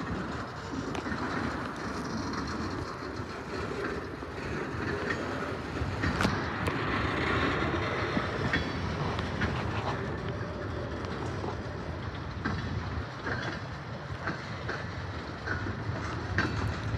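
Freight train cars rolling past on steel wheels: a steady rumble with irregular clicks and clanks as the wheels cross the rail joints.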